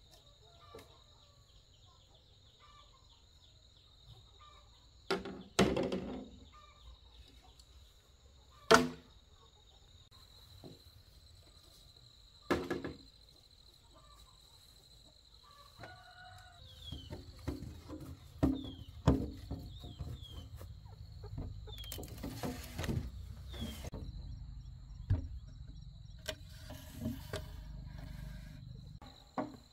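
Rural outdoor ambience: chickens clucking over a steady high insect drone, with a few sharp knocks, the loudest about nine seconds in, and a low rumble through the second half.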